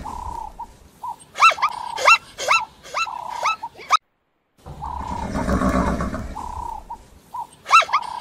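Zebra calling: a rough, drawn-out bray followed by a run of short, high yelping barks, about two a second. The whole call sounds twice, with a short break just before halfway.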